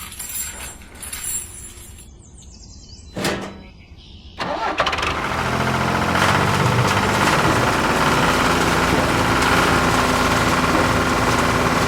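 A small motor starts suddenly about four and a half seconds in and then runs steadily and loudly. Before that there is a quieter stretch with a single knock.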